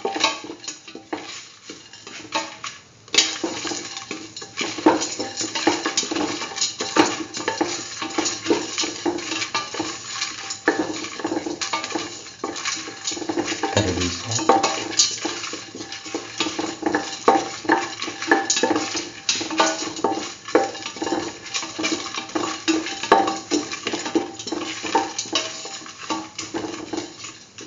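Spatula scraping and clattering against a metal pan while stirring and sautéing chickpeas with cumin seeds and dried red chillies: a steady run of quick scrapes and clicks.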